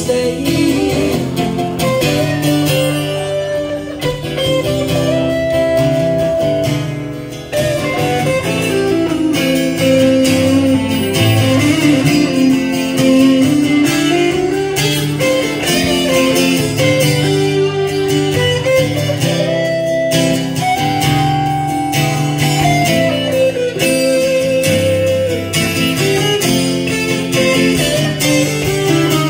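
Electric guitar solo on a Stratocaster-style guitar, with notes bent up and down and held, over a strummed acoustic guitar keeping the chords.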